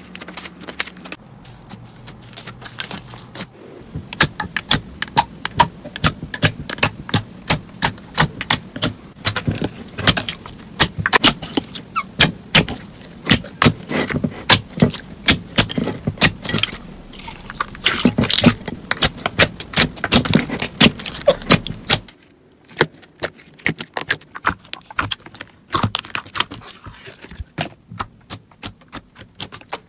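Slime being squeezed and kneaded by hand, giving quick runs of sticky, wet clicks and pops. About 22 seconds in the background drops away and the pops become sparser.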